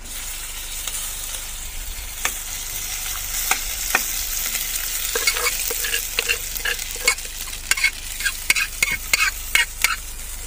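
Spiced oil tempering sizzling in a steel pan on a portable gas stove as leftover cooked rice is spooned in and stirred. From about halfway through, a metal spoon scrapes and taps repeatedly against the steel pot and pan.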